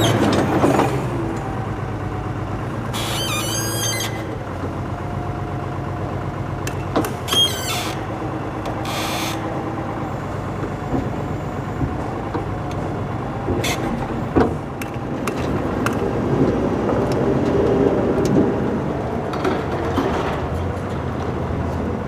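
Forklift engine running as the forklift drives up and moves alongside the flatbed trailer, with brief high squeals twice, about three and seven seconds in.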